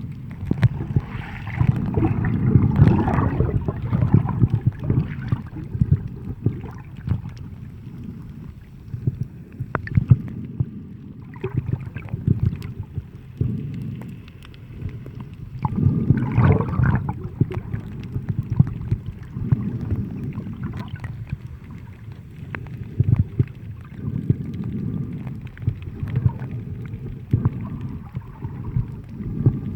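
Sea water sloshing and surging in uneven swells every few seconds, with scattered clicks and knocks.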